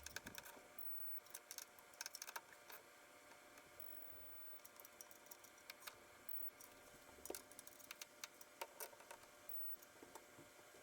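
Irregular light clicks and taps in small clusters, from hand work on the car's parts and wiring, over faint background hiss.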